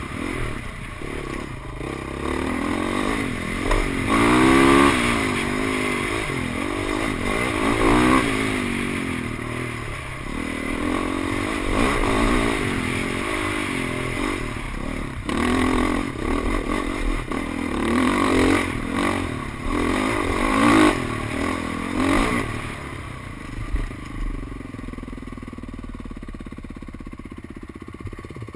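Dirt bike engine revving up and down as it is ridden over rough trail, with knocks and rattles from the bike along the way. About 23 seconds in, the engine drops to a quieter, steadier note.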